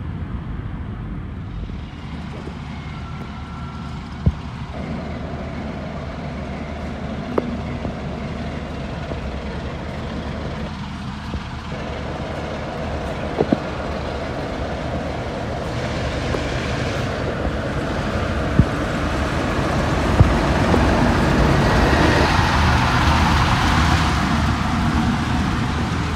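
Diesel engine of a British Rail Class 45 'Peak' locomotive running as it draws into the platform and passes, a steady low rumble that grows louder toward the end. A few sharp clicks sound along the way.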